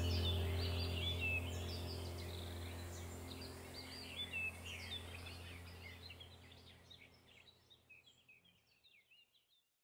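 Birds chirping over a low steady hum, the whole ambience fading out gradually to silence about seven seconds in.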